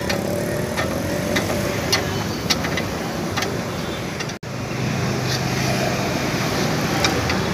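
Road traffic and vehicle engines running nearby, with a few sharp clicks of a steel ring spanner on a bolt. The sound drops out for an instant a little past halfway.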